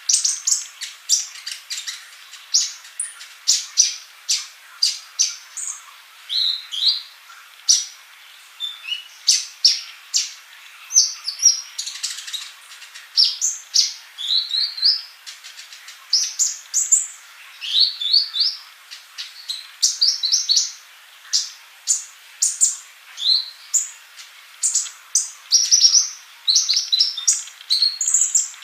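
Sunbird (the cage bird called 'colibri' in Indonesia) singing without pause: a rapid stream of high, sharp chirps and twitters mixed with short rising trills.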